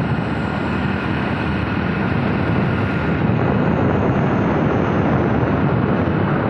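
Wind buffeting the phone's microphone from riding on an open vehicle along a road, over a steady engine drone.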